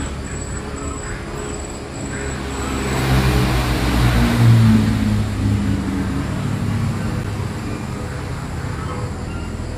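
A motor engine running, growing louder for a few seconds in the middle and then easing off. A faint high-pitched pulsing tone repeats about twice a second in the first three seconds.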